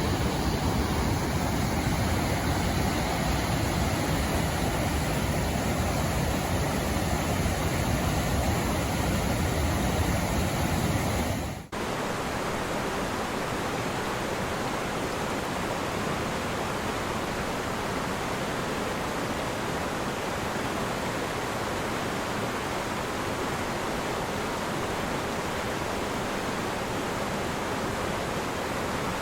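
Merced River water rushing steadily. About twelve seconds in the sound cuts off for an instant and resumes as a slightly softer, more even rush with less low rumble, a different stretch of the river.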